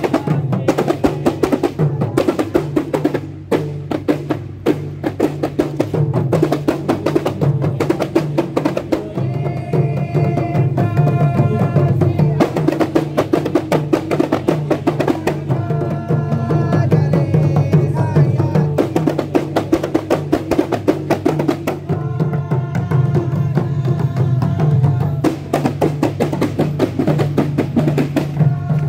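A group of kompang, Malay hand-held frame drums, struck with the palm in a fast, dense rhythm of many quick beats. A pitched melody line comes in and out over the drumming several times.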